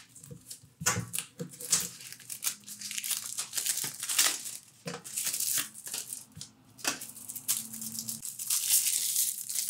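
Wrapper of a 1994 Flair baseball card pack crinkling and tearing as it is worked open by hand, in an irregular run of crackles.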